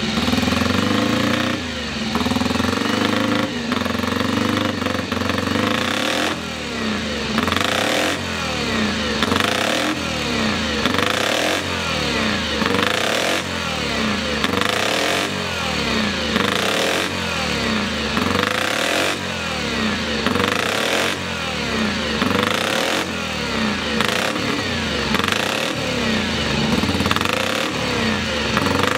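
Moto Guzzi supercharged single-cylinder racing engine running, blipped over and over so the revs rise and fall about every one to two seconds.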